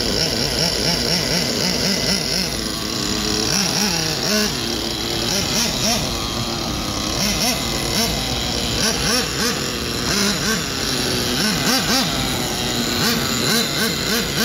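Nitro RC buggy's .28-size glow engine running and revving up and down over and over as the throttle is blipped while driving. The engine is in break-in, so it runs a little rough.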